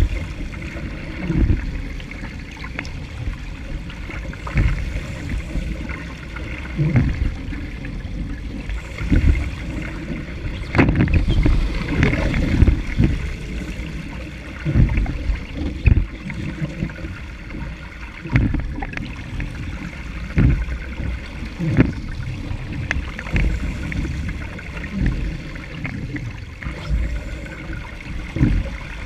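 Wind buffeting the deck-mounted camera's microphone in irregular gusts, over the rush and splash of water along a Laser sailing dinghy's hull as it drives heeled through choppy water.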